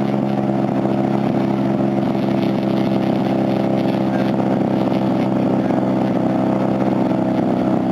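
Large radio-controlled airplane's engine running at a steady pitch, a constant drone.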